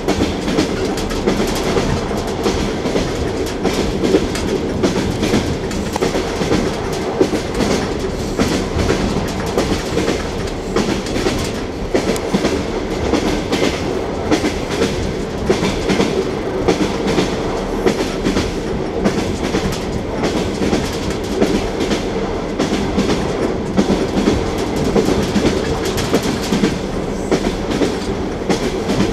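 Passenger train wheels knocking over the rail joints as the train runs, heard from inside the carriage: a steady rumble broken by a continual run of sharp clickety-clack knocks.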